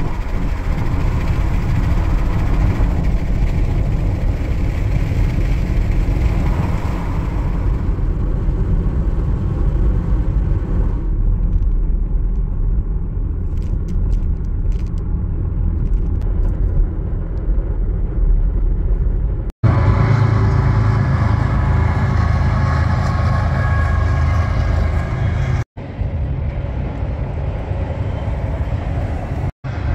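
Car driving at road speed: a steady rumble of tyres and engine, broken by three short abrupt cuts in the last third.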